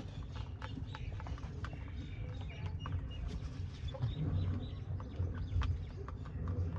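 Animal sounds from caged birds or small livestock: short chirps and calls with many scattered clicks and taps, over a steady low rumble.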